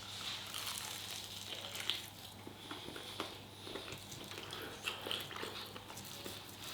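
Someone chewing a mouthful of chicken, with scattered small wet mouth clicks and smacks.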